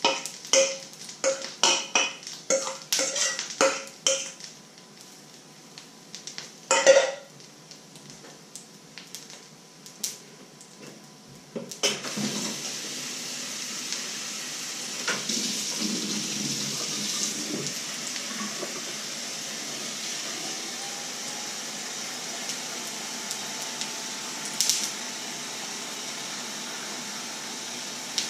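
A utensil scraping and knocking batter out of a stainless steel mixing bowl: quick ringing metallic taps, several a second, for the first few seconds, then a single loud clatter. About twelve seconds in a kitchen tap is turned on and runs steadily.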